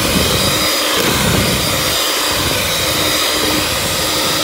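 Electric mixer running steadily with a continuous whir and low motor hum, its beater churning thick chocolate cake batter.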